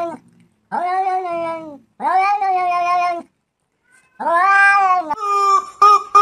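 A cat meowing three long, drawn-out meows. Near the end this gives way to a rubber chicken toy squawking in quick repeated squeezes.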